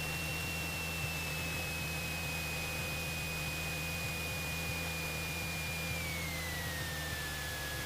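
Cessna 172's engine running at low power, heard through the headset intercom as a steady drone under hiss. A high whine over it slides down in pitch about six seconds in.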